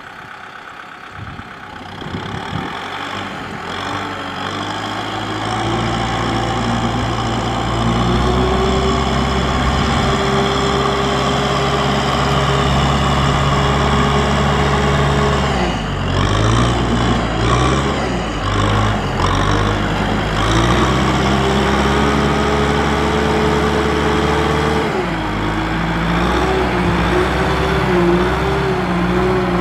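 Kubota M6040SU tractor's diesel engine working under load, pulling a trailer of rice sacks through soft, muddy paddy. It grows louder over the first several seconds. Past the middle the engine note dips and recovers several times, then sags once more before steadying.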